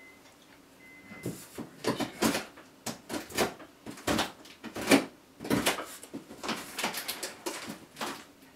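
Taped cardboard box being handled and worked at to open it: an irregular run of short scraping and rustling strokes on the cardboard and packing tape, starting about a second in.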